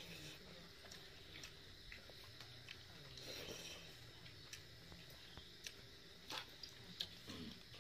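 Faint eating sounds from someone eating by hand: scattered small clicks and soft smacks of chewing, with fingers picking at fried fish and rice on a steel plate.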